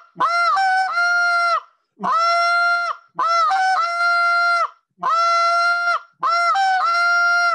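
Short reed goose call blown in five long moans, alternating a steady moan with one that breaks briefly up in pitch and back down: the siren drill for learning the goose's moan, and the air pressure and jaw movement behind it.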